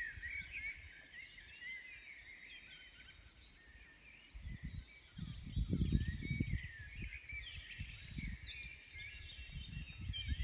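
Dawn chorus: many songbirds singing and trilling together, overlapping calls throughout. For a few seconds in the middle, low rumbling thuds come through beneath the birdsong.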